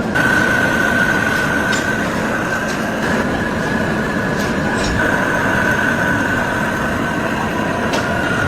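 Heavy lathe machining a large metal pulley: a steady rumble of the machine with a continuous high-pitched squeal from the cutting tool on the metal.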